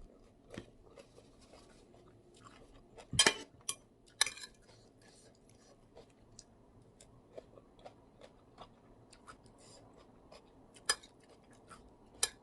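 Close-up eating sounds: a person chewing a spicy instant-noodle and seafood salad, with scattered short clicks and taps. The loudest are a little over three seconds in, with another about a second later.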